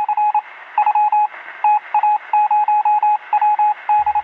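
Morse code: a single steady beeping tone keyed on and off in short and long pulses, over a background of radio hiss.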